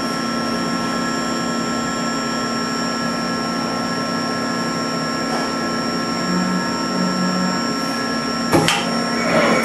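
Mori Seiki NL2500SY CNC lathe standing by under power, with its chuck still: a steady hum carrying several constant high whining tones. A sharp clunk comes near the end, and louder machine noise follows.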